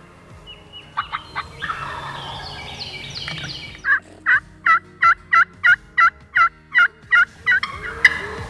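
Wild turkey calling: a rattling gobble, then a steady run of about eleven yelps, roughly three a second.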